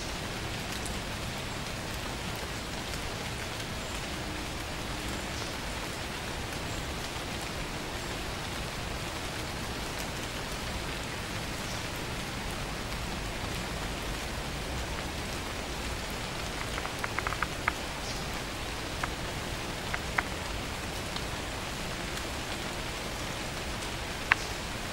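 Steady rain falling on woodland, an even hiss of drops on leaves and ground, with a few sharper drop ticks in the second half.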